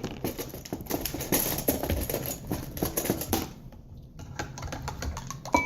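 Homemade slime being squeezed and poked by hand, making many small irregular wet clicks and pops.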